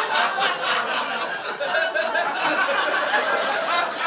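Live comedy-club audience laughing, many voices together.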